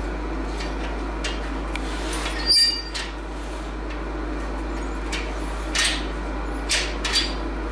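Steel go-kart pedal and frame tubing knocked about by hand: one sharp metal clank with a short ring about two and a half seconds in, then a few lighter knocks near the end, over a steady low hum.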